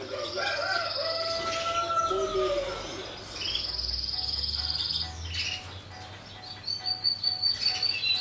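Caged finches chirping and trilling: a buzzy high trill twice, then quick high chirps starting near the end, over faint background music.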